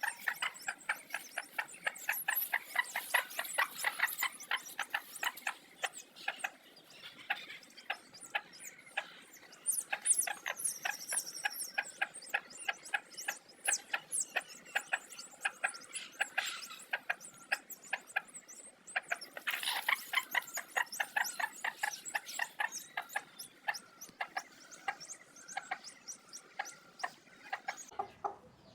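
A brood of newly hatched desi chicks peeping continuously: many rapid, high, short chirps a second.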